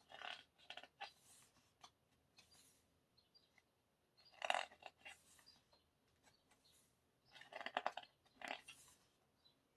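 Paper rustling as the pages of a K-pop album photobook are handled and turned, in three short bursts: near the start, about four and a half seconds in, and around eight seconds in.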